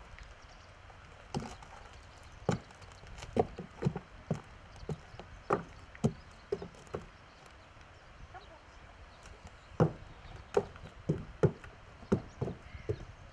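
Horse's hooves knocking on a podium of wooden pallets as it steps up onto it and shifts its feet: irregular sharp knocks, a run of them in the first half and another toward the end.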